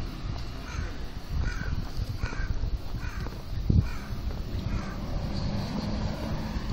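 A crow cawing: a series of about six short, harsh calls, evenly spaced, over a low steady background rumble.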